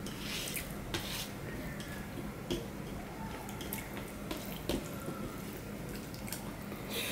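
Fingers mixing and gathering rice on a stainless steel plate: soft wet squishes with scattered small clicks of fingers and food against the metal.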